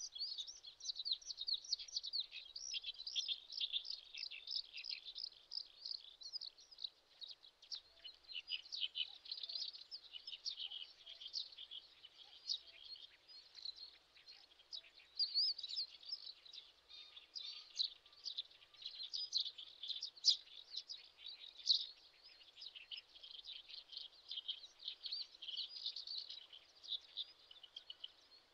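Dense, unbroken high-pitched chirping and twittering of small birds, many short notes overlapping throughout.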